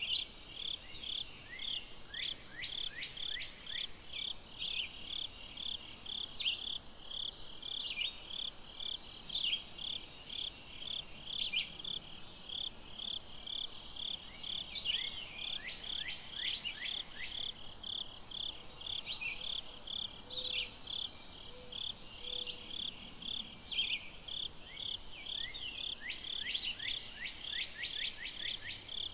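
Steady insect chirping outdoors, a high pulse repeating about three times a second without a break. Several times it is joined by a short run of quick, high, downward-sliding chirps.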